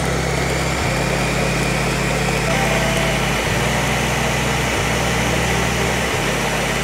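Countertop blender motor running steadily, liquefying a red sauce in its jar.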